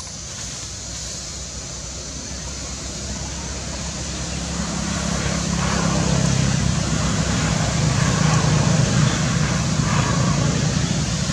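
Motor vehicle engine running nearby, growing louder about halfway through and then holding a steady hum.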